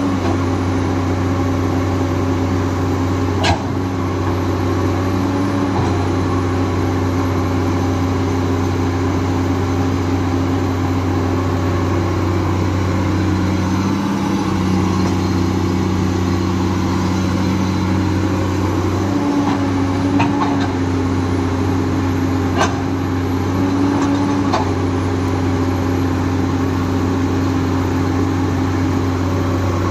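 Komatsu PC210LC hydraulic excavator's six-cylinder diesel engine running steadily while digging. Its note shifts every few seconds as the machine works, and a few sharp knocks stand out, one a few seconds in and two more later on.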